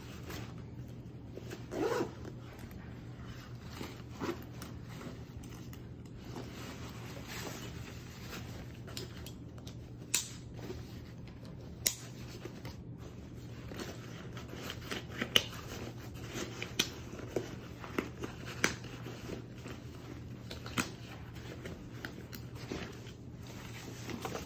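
A TropicFeel Shell nylon backpack being handled and closed up: fabric rustling and zipping, broken by several sharp clicks from its hardware, most of them in the second half.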